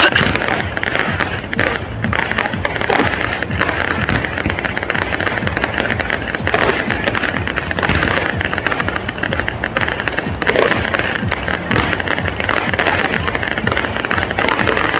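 Fireworks grand finale: a dense, unbroken barrage of aerial shell bursts and crackling.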